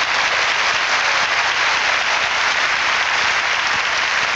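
Large congregation applauding: a steady, dense clapping of many hands.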